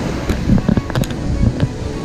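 Surf washing up a beach with wind rushing over the microphone. A handful of sharp clicks and knocks come at irregular intervals, from about a third of a second to a second and a half in.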